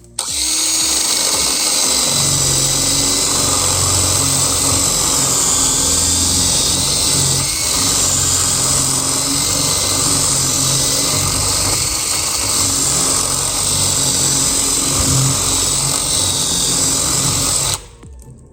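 Electric drill running steadily under load, drilling through a lock cylinder, starting at once and cutting off about a second before the end.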